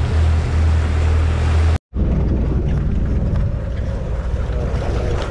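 Motorboat engine running steadily under way, with rushing wake water and wind. About two seconds in it cuts off abruptly, and after that the engine is lower under a steady rush of wind and water.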